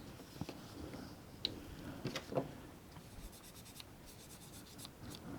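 Faint handling of a folding metal multi-tool: light rubbing with a few small, sharp clicks and a short stretch of fine rapid ticking.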